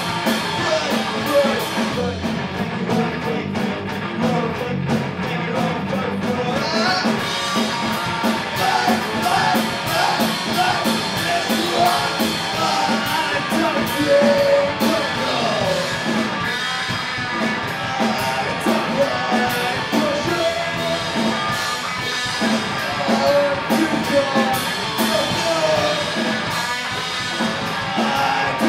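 Live rock band playing: electric guitar and drum kit with steady drum and cymbal hits, and the singer's vocals at the microphone over them.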